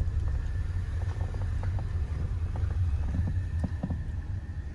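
Car driving slowly, a steady low rumble with a few faint clicks.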